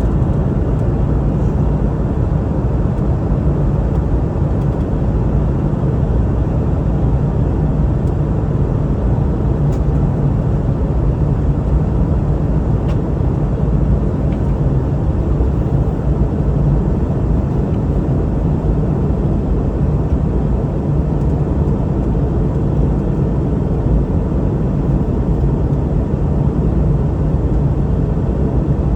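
Steady in-flight cabin drone of a Boeing 717-200: a low, even rumble of airflow and its rear-mounted engines heard from a passenger seat.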